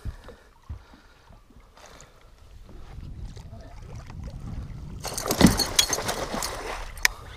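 A large northern pike splashing and thrashing at the water's surface as it is scooped into a landing net beside the boat. The splashing is loudest from about five seconds in, with a few knocks.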